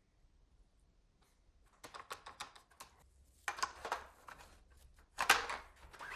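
Clusters of short clicks and rattles from toy guns being handled. The first cluster starts about two seconds in, and more follow every second or so.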